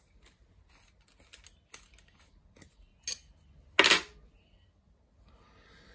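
Steel parts of a milling angle head handled and taken apart by hand: a series of light metal clicks and clinks, with one louder metal clank about four seconds in.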